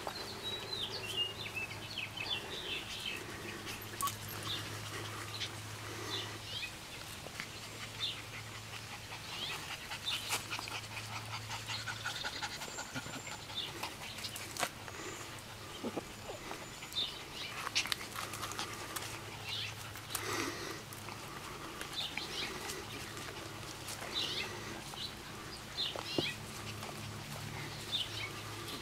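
Shepherd puppies playing with an adult dog: scattered short, high yips and squeals with scuffling among them. A low hum comes and goes underneath.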